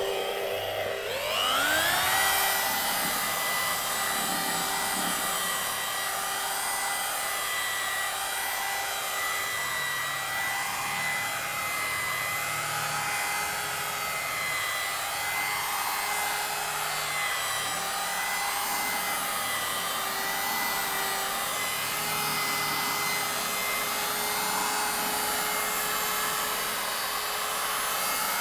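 Rotary polisher with a twisted wool pad spinning up about a second in, then running steadily as it polishes compound into a GRP gelcoat panel. It makes a steady whine whose pitch wavers slowly up and down as the pad is worked across the panel.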